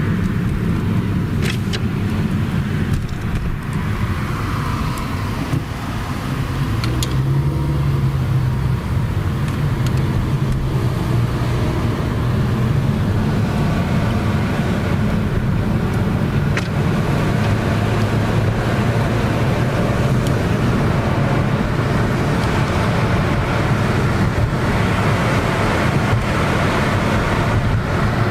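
Road traffic noise: a steady low rumble of vehicles driving, with a few short clicks.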